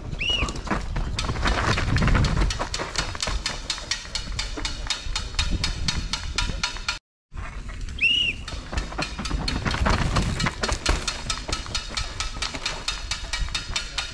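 Downhill mountain bikes passing on the race course, one in each of two short clips, with a rush that swells as each rider goes by. Constant rapid clattering runs under both clips. A sudden cut to silence about seven seconds in separates the clips.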